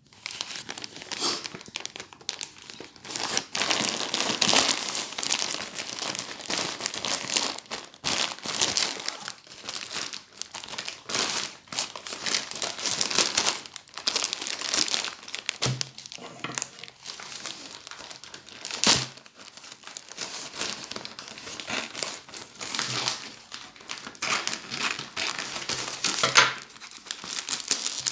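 Plastic courier mailer bag and its packing tape crinkling and crackling irregularly as hands handle it and pull it open, with a couple of dull knocks in the middle.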